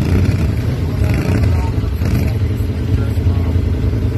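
ATV engine running steadily at a low, even rumble, close to the microphone.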